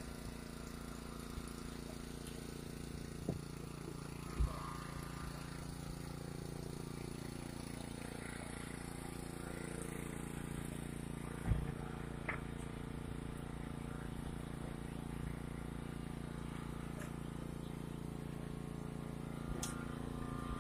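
Steady engine hum at a constant pitch, broken by a few short sharp knocks.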